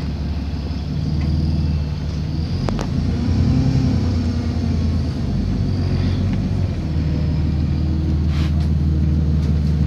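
Alexander Dennis Enviro400 double-decker bus heard from inside the passenger saloon: a steady low engine drone that grows louder about a second in as the bus pulls away and gathers speed along the street. A single brief click comes a little under three seconds in.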